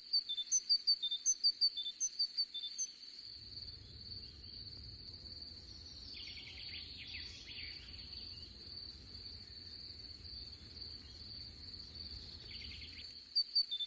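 A high, steady chirping trill that pulses rapidly for the first few seconds and again near the end, with a low rumble underneath from about three seconds in.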